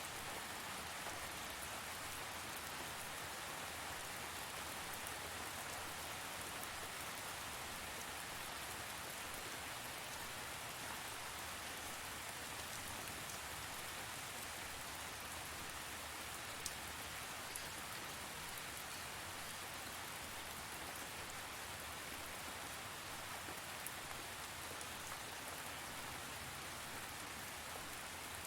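Steady rain falling on a surface, an even hiss with a few individual drop ticks standing out now and then.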